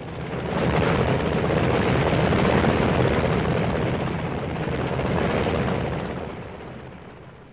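Helicopter engine and rotor noise as the helicopters take off, swelling in over about a second and then slowly fading away.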